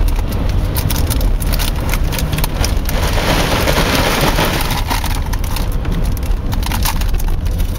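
Car interior noise while driving on a wet, snowy highway: a steady low rumble, a louder hiss for about two seconds in the middle, and scattered clicks throughout.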